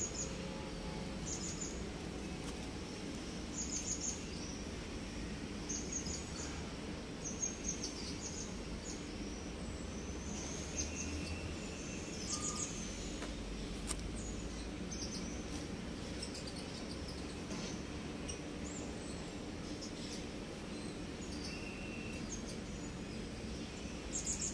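Birds chirping outdoors in short, high-pitched calls every second or two over a steady low background hum.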